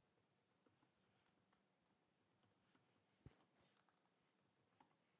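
Near silence with a few faint, scattered computer keyboard keystrokes as a command is typed.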